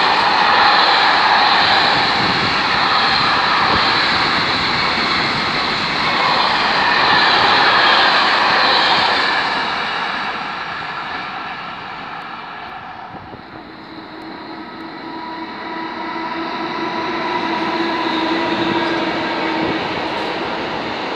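Rolling noise of a container freight train's wagons passing on the rails, loud at first and fading about halfway through as the train draws away. It then swells again as another intermodal freight train of swap bodies and trailers rolls past close by, with a steady hum for several seconds.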